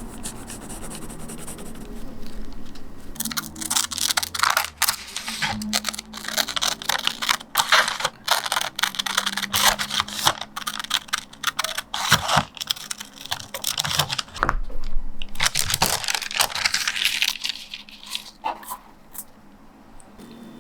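Pencil scratching across paper in quick, irregular strokes, with a longer unbroken run of strokes about three quarters of the way through.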